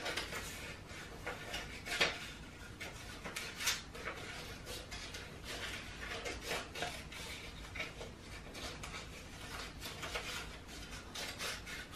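Scissors snipping through sheet paper in a run of short, irregular cuts, with the paper rustling as it is turned to follow curved, drippy outlines.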